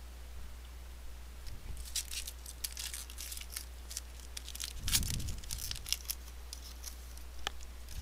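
A stack of 2013 Bowman baseball cards being handled and thumbed through: a run of quick papery clicks and slides as card edges snap past one another, with a soft thump about five seconds in.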